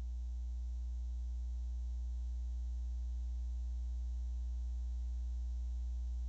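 Steady electrical mains hum with a stack of steady overtones above it, unchanging throughout.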